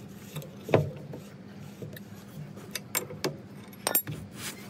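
Scattered sharp knocks and clicks, the loudest a little under a second in and several more close together near the end, over a steady low hum.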